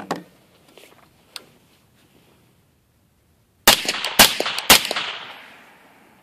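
Three suppressed shots from a 5.56 AR-15 short-barreled rifle fitted with an SD Tactical titanium suppressor, about half a second apart, each followed by an echo that dies away over a second or so. A few light handling knocks come before the shots.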